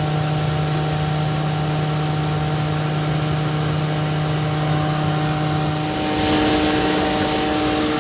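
Hammer-mill pulverizer for grinding maize running with a steady hum and hiss. About six seconds in, its low hum drops away and it grows slightly louder, with more high hiss.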